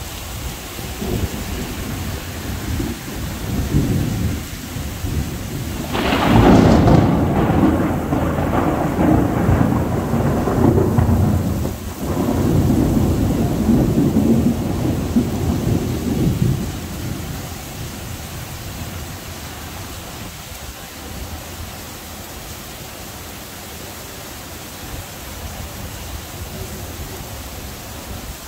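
Heavy rain falling steadily with rolling thunder. A low rumble builds over the first few seconds, a loud thunderclap breaks about six seconds in, and the rumble rolls on for about ten seconds before fading back to the rain.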